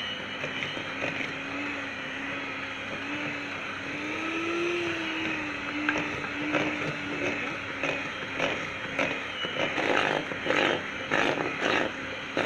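Electric hand mixer running, its beaters churning crumbly biscuit dough of butter, sugar and flour in a bowl; the motor's hum rises a little in pitch about four seconds in. From about eight seconds on the beaters knock repeatedly against the bowl.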